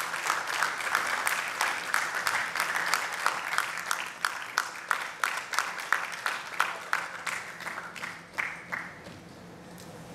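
Audience applauding, with dense clapping at first that thins to a few scattered claps and dies away about nine seconds in.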